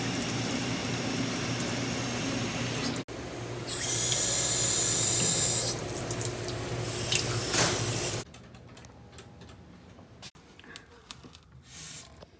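Faucet water running into a sink, with a harder, hissier spray for about two seconds in the middle. The water stops about eight seconds in, and faint clicks and knocks follow.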